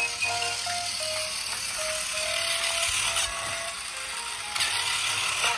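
Whirring gears of a battery-powered toy train engine running on plastic track, getting louder about three-quarters of the way through, with music playing in the background.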